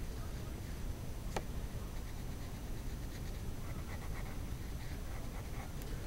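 Pencil scratching faintly on paper while sketching, over low background noise, with one sharp click about a second and a half in.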